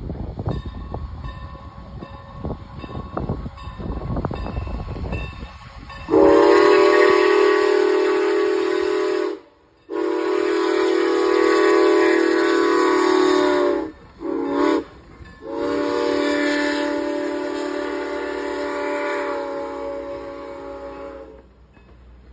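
Steam whistle of Norfolk & Western 4-8-0 steam locomotive No. 475 blowing the grade-crossing signal: two long blasts, a short one, then a final long blast, starting about six seconds in after a low rumble of the approaching train.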